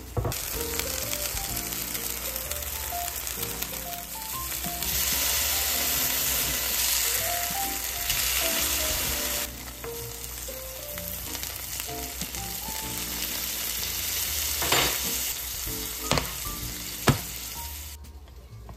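Sole fillets sizzling as they fry in oil in a frying pan, the sizzle louder for a few seconds in the middle, with a few sharp clicks near the end. Soft background music with a gentle melody plays underneath, and the sizzle stops shortly before the end.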